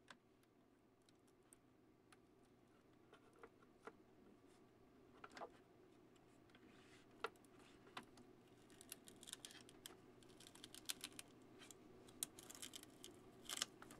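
Faint scraping and clicking of a thin metal blade worked under a 3D-printed part's plastic raft, prying it off the tape-covered build platform, with a faint steady hum behind. The clicks are sparse at first and come thicker over the last five seconds as the part comes free.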